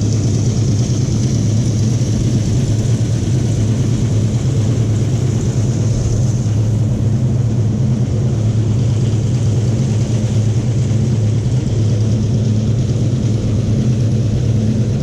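A loud, steady engine or motor drone with a low hum and a high hiss, holding constant without revving.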